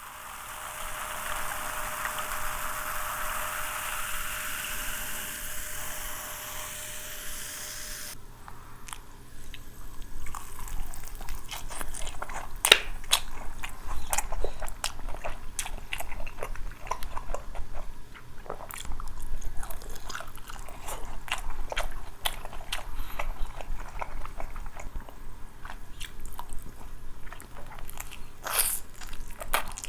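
Close-miked crunchy bites and chewing of crispy fried chicken, with many sharp irregular crackles. It opens with a steady rushing noise that cuts off abruptly about eight seconds in, before the crunching starts.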